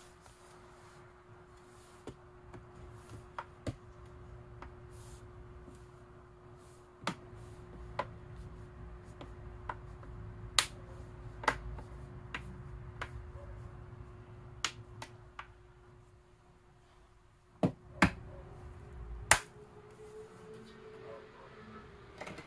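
Scattered sharp clicks and taps of a tablet's case and small parts being handled and fitted together during reassembly, with a few louder snaps near the end, over a faint steady hum that stops about three quarters of the way through.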